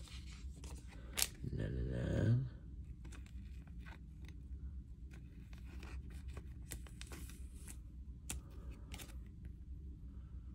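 Hockey trading cards and their packaging being handled: a scattered run of light clicks, scrapes and rustles. A short murmur of a voice comes about two seconds in.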